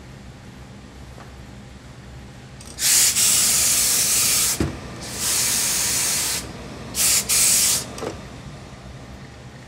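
Steam iron letting out three bursts of hissing steam, the first two a second or two long and the last shorter and broken, with a soft knock after the first burst.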